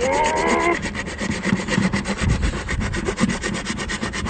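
A kitchen knife sawing back and forth through the hard shell of a large cooked lobster, a fast rasping scrape of steel on shell. A brief rising squeal sounds near the start.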